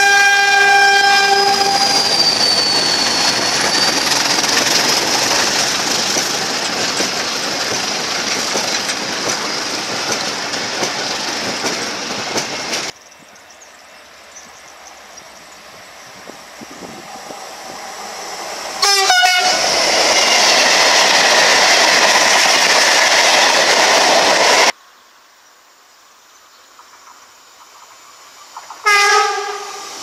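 Train horns sounded by passing trains, with the rumble of each train going by in between. A diesel locomotive's horn chord ends about two seconds in, and the train runs past until a sudden cut. A second horn with a wavering pitch sounds a little past halfway, and its train passes loudly. After another cut, a third short horn blast comes near the end from an approaching electric multiple unit.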